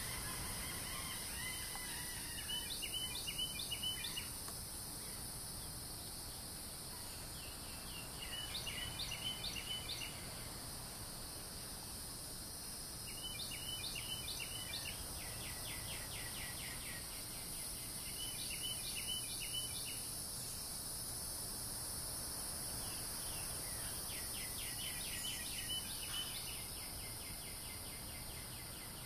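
A songbird repeating a short, high-pitched song phrase of rapid notes about every five or six seconds, some phrases ending in a quick trill, over a steady background hiss.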